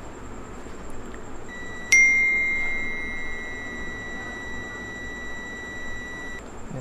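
Digital multimeter's continuity buzzer giving one steady high beep, about four seconds long, starting abruptly about two seconds in as the probes touch the winding of a new CRT TV yoke coil's horizontal section. The beep signals continuity through the winding, which reads about 6 ohms.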